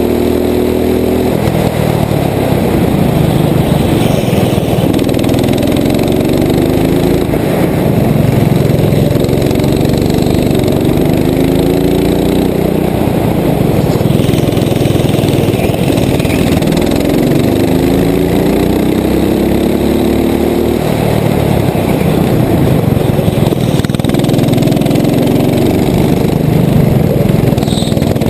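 Rental go-kart engine running hard, heard from the kart itself: its pitch climbs again and again as the kart accelerates, then falls back as it eases off.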